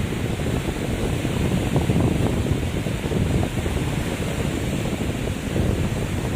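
Rough sea surf: a steady, continuous rush of breaking waves.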